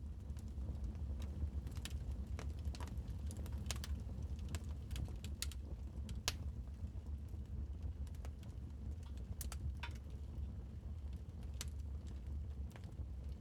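Wood fire crackling in a fireplace: irregular sharp pops and snaps, one louder pop about six seconds in, over a steady low rumble of the burning fire.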